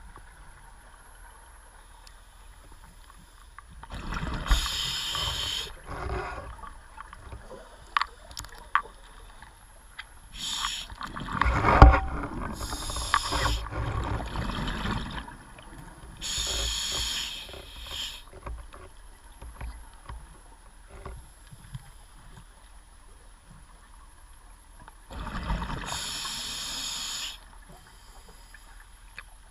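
Scuba diver breathing through a regulator underwater: bursts of exhaled bubbles, the first about four seconds in and again near 16 and 25 seconds. Around the middle come knocks and rumbling as the camera is jostled, the loudest knock about 12 seconds in.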